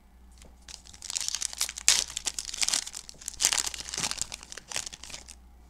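Foil wrapper of a Panini Prizm football card pack crinkling and tearing as it is ripped open by hand: a dense, high crackle that starts about a second in and stops shortly before the end.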